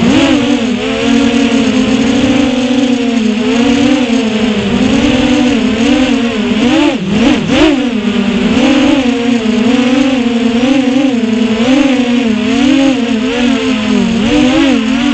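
Onboard sound of a 6-inch FPV quadcopter's brushless motors (Eachine 2407 1850KV on 6S) and props whining, the pitch rising and falling constantly with throttle. About seven seconds in the pitch drops sharply twice and swoops back up as the throttle is chopped and punched.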